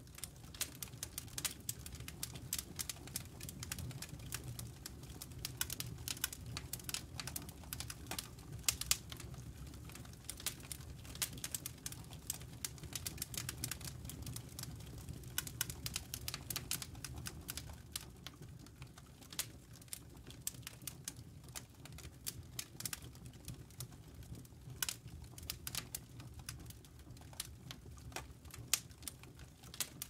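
Wood fire burning on a log grate in a brick fireplace: irregular crackling and sharp pops from the burning logs over a low steady rumble of the flames. The crackling is densest in the first half and thins out somewhat later.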